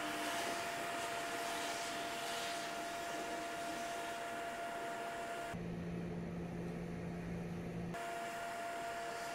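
Steady machine-like hiss with a constant whine. For about two seconds in the second half the hiss and whine cut out and a low hum takes their place, then they return.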